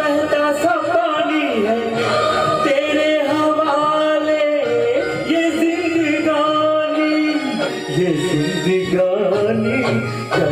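A man singing a Hindi film song into a handheld microphone over music accompaniment, holding long, wavering notes.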